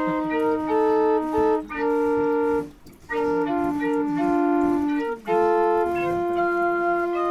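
Small portable pipe organ playing a slow piece in steady held chords. The phrases break off briefly about a second and a half in and again around three seconds in, and a long held chord fills the last two seconds.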